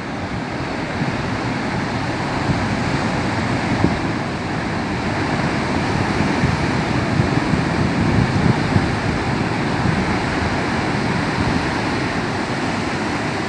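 Rough, choppy sea: surf breaking and churning without pause, with uneven low rumbles of wind buffeting the microphone.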